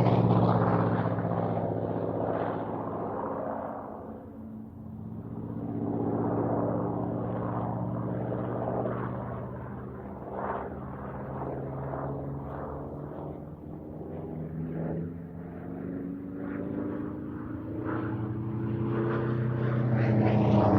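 World War 2 piston-engined propeller aircraft flying past: its engine note falls in pitch and fades over the first few seconds, drones more quietly through the middle, then grows louder again with a rising pitch near the end.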